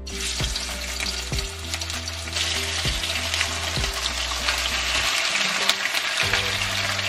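Marinated chicken thigh pieces sizzling in a thin layer of hot olive oil in a frying pan as they go in, the sizzle starting suddenly and growing louder about two seconds in as more pieces are added. Background music with a regular beat underneath.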